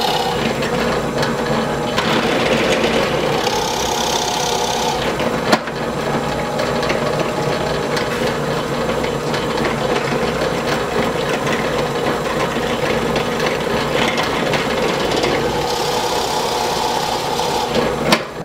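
Drill press running steadily, its 5/8-inch Forstner bit boring shallow recesses into wooden canoe seat frames to hide the nuts and washers. The cutting comes in stronger spells, with one sharp click about five and a half seconds in.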